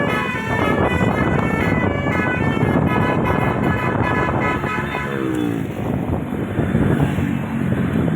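A bus's multi-trumpet 'telolet' air horn, 18 roof-mounted trumpets, playing a quick tune of stepped notes that stops about five seconds in. After it, a brief falling tone and the noise of the vehicle running.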